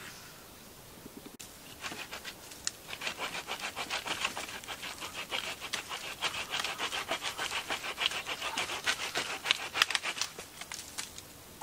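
Hand saw cutting through a branch end on a shelter frame, in a fast steady back-and-forth rhythm of about three strokes a second. The sawing starts about two seconds in and stops shortly before the end.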